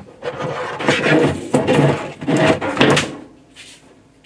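Hands handling water-line fittings and tubing: a run of rustling, knocking and clattering from about a second in to about three seconds in, then quieter.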